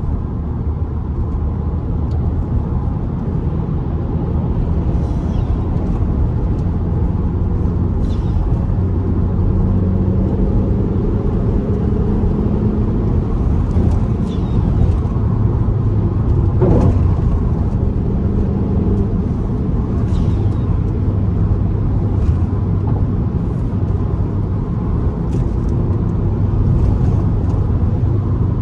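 Fiat Bravo T-Jet's turbocharged four-cylinder engine and road noise at highway cruising speed, a steady drone whose engine note drifts slightly up and down, its loud aftermarket exhaust partly quieted for the trip.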